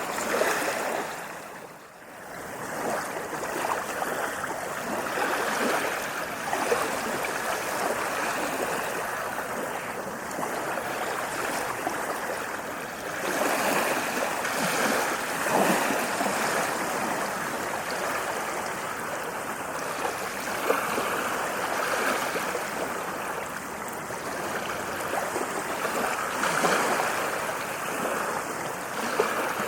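Ocean waves washing onto a sandy beach: a continuous rush of surf that swells and eases, with stronger surges around the middle and near the end, and a brief drop in level about two seconds in.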